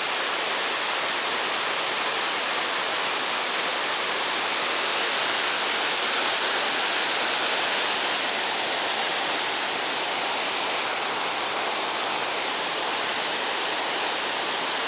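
Steady rush of falling water, swelling slightly a few seconds in and easing back near the end.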